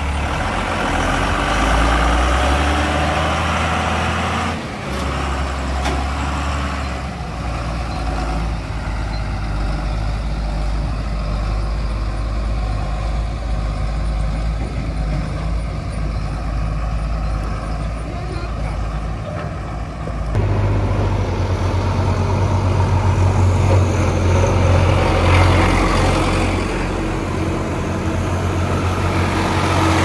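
Heavy diesel engines running with a steady low hum. About two-thirds of the way through the hum gets stronger and grows louder as a Swaraj 744 XT tractor drives up close.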